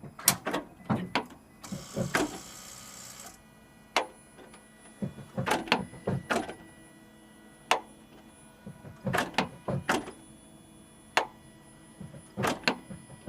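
Second-generation Toyota Prius transaxle knocking: irregular groups of sharp knocks every second or two, the sign of a fault in the planetary gear set. A brief hiss comes in about two seconds in.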